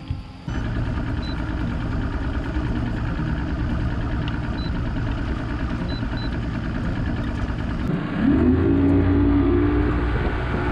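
Bass boat's outboard motor running under way with a steady rush of wind and water. About eight seconds in, the engine pitch rises and holds higher as the throttle opens.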